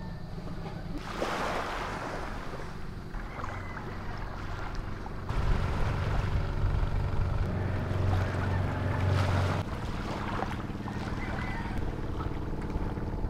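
A boat engine running steadily, louder for a few seconds in the middle, with wind on the microphone and water lapping.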